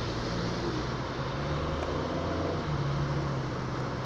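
Car driving along, heard from inside the cabin: steady road and tyre noise with a low engine drone.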